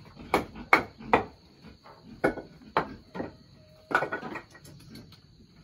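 Wooden knocks and clatter from the bars of a wooden cattle stall being handled, about seven sharp knocks in the first four and a half seconds. A steady high insect hum runs under them.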